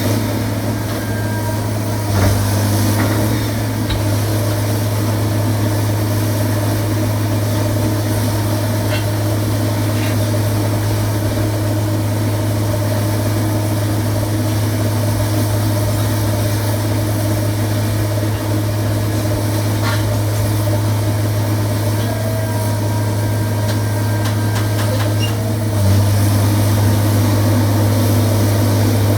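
Sierra 656SL metal shear baler's power unit running steadily with a strong low hum and a few faint clicks, getting slightly louder near the end.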